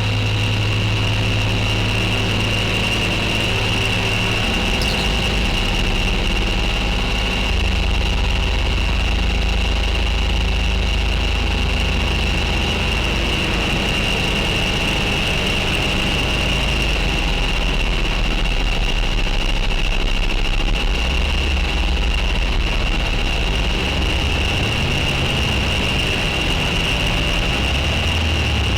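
Electronic drone from an Elektron Digitone synthesizer: a dense, continuous hum with a steady high whine on top. Deep bass notes underneath shift to a new pitch every several seconds.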